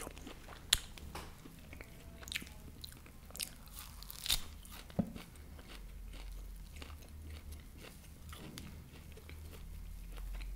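A person chewing food close to the microphone: soft mouth sounds broken by sharp crunches, a few louder ones standing out about a second in and around four to five seconds in.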